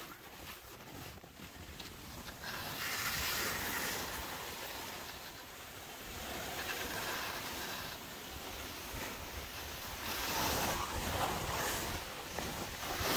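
Splitboard sliding over snow on a downhill run, a steady hissing rush that swells and eases several times as the board turns, with wind buffeting the microphone.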